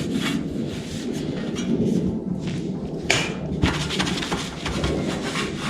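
Items being shifted and set down by hand, with dull thumps and a sharper knock about three seconds in.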